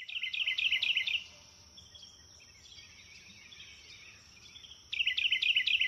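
A songbird singing two fast phrases of about seven sharp, dropping whistled notes a second, with fainter chirps between the phrases. A steady high buzz runs underneath.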